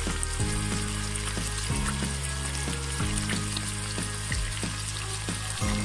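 Diced chicken and sliced red onion sizzling steadily in hot oil in a wok, with a soft background tune of held low notes under it.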